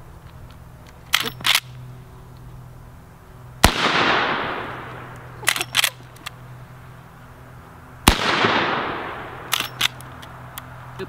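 Two .44 Magnum shots from a Marlin 1894 lever-action rifle, about four and a half seconds apart, each followed by a long echo. Between the shots come pairs of short sharp clacks as the lever is worked to eject and chamber the next round.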